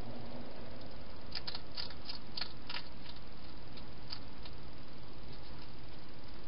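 Wild hedgehog eating at a food bowl inside a plastic feeding box: a quick run of sharp chewing clicks, then a couple more, over a steady hiss.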